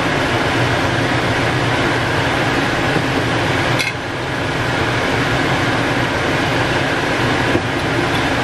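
Steady, loud fan-like whooshing noise with a low hum. It dips briefly about four seconds in.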